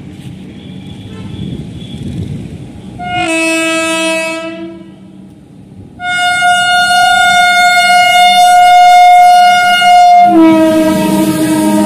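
Indian Railways electric locomotive hauling an express through a station at speed, sounding its horn: first a short blast, then a long loud one. The long blast drops slightly in pitch as the locomotive passes, over the rumble of the train.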